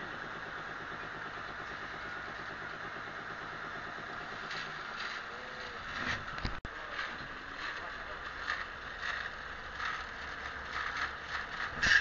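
A band saw blade sharpening machine running: its motor hums while the grinding wheel works the blade tooth by tooth. Past the middle, its short grinding strokes come about twice a second.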